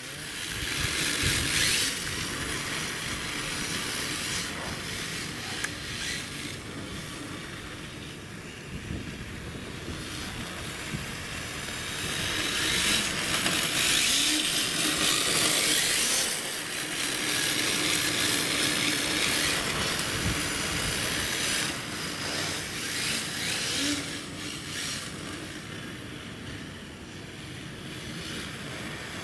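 RC drift car's hard plastic tyres hissing and scraping across asphalt as it slides sideways through corners, swelling and fading as the car passes, with a faint rising and falling motor whine.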